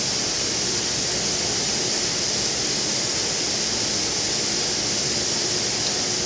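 Steady, even hiss of a running granite CNC machine, with a few faint steady tones underneath.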